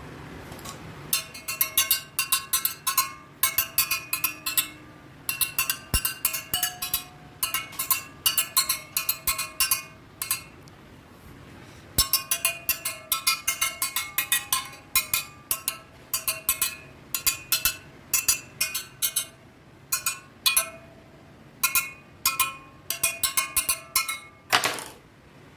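Tensioned wire wheel spokes struck one after another with a metal tool, each giving a short, clear ringing ping, in quick runs of several a second with pauses between: a ping test of spoke tension. A brief whoosh near the end.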